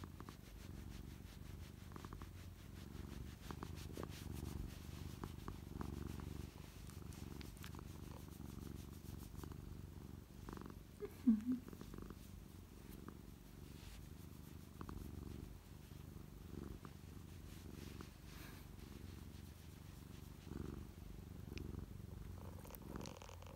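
A black-and-white domestic cat purring steadily in a low, pulsing rumble while being rubbed under the chin. One brief higher note sounds about halfway through.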